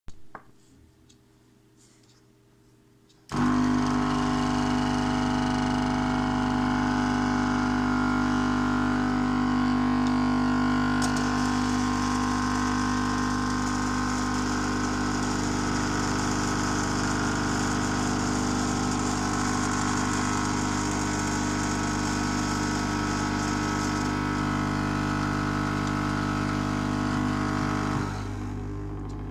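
Lukey 852D+ hot-air rework station's air pump switched on about three seconds in, running with a loud, steady hum and strong vibration; about a second before the end the hum drops to a quieter level. The strong hum and vibration are a fault that appeared after more than a year of the station standing unused, with no transport bolt left in the pump to blame.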